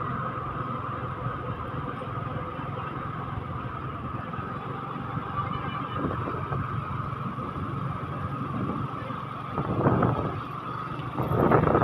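Steady running noise of a vehicle driving along a road, with a constant high whine. Louder rushes of wind on the microphone come about ten seconds in and again near the end.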